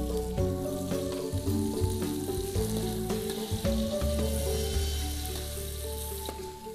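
Sliced tomatoes and chillies sizzling as they are stir-fried in oil in a large aluminium wok, a metal spatula scraping and tapping against the pan now and then.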